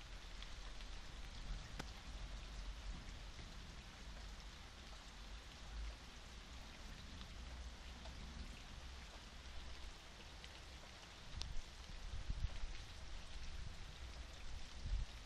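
Steady storm rain falling, an even hiss with scattered ticks of individual drops, and a few low rumbling swells near the end.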